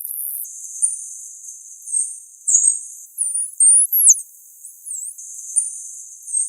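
Dolphin whistles: a string of short, very high whistles, each sliding up, down, or down and back up in pitch, about one or two a second.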